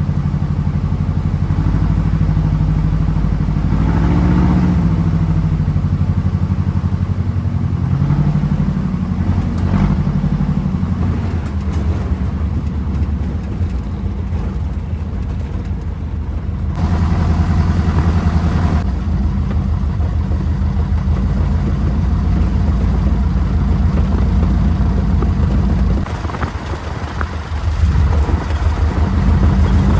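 Piper PA-18 Super Cub's piston engine running steadily. Its power comes up about halfway through, then dips briefly and rises again near the end.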